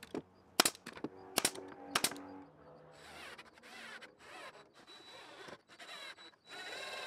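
Pneumatic brad nailer firing sharp shots into cedar, about four in the first two seconds, tacking a louver into the vent box. After that, quieter short whirring spells from a cordless impact driver running screws.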